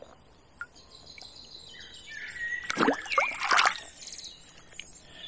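A tench splashing in shallow lake water as it kicks free of the hand and swims off, a short burst of splashes about three seconds in. Birds sing in the background.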